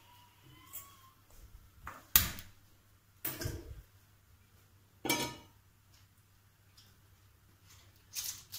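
Stainless-steel pots knocking against the gas stove's burner grates as they are moved and set down: a few separate metal clatters, the loudest about two seconds in.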